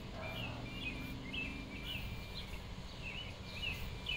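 A bird chirping in short rising notes, about two a second, over the faint low whir of the HBX Devastator 1/24 RC crawler's motor and gears as it creeps over rocks.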